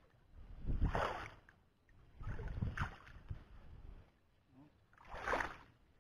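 Three bursts of rustling and rumbling as a handheld camera is carried through tall grass, the stems brushing past and air buffeting the microphone.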